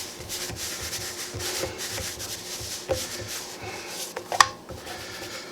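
Flour tortillas being slid and flipped by hand in a dry skillet to warm them: irregular dry scraping and rubbing, with one sharp tap about four and a half seconds in.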